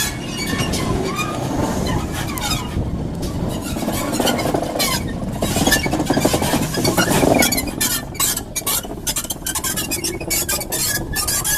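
Railway train running past with its wheels squealing against the rails, and a run of sharp clicks and knocks in the last few seconds.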